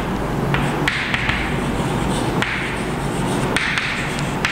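Chalk writing on a blackboard: a run of sharp taps and short scratchy strokes as the letters are written.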